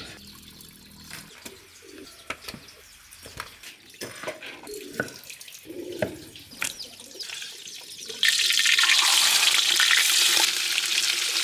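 Water: scattered small drips and splashes, then about eight seconds in a sudden loud, steady rush of water that lasts about three seconds.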